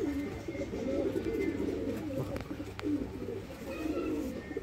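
Domestic pigeons cooing in a loft, many low burbling coos overlapping without a break. Two faint clicks come about halfway through.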